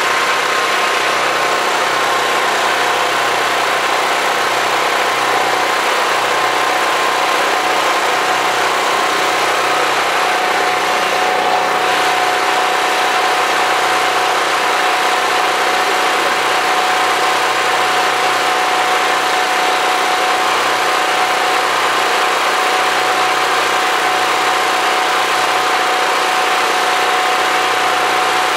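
Portable generator engine running loudly and steadily, with a constant hum.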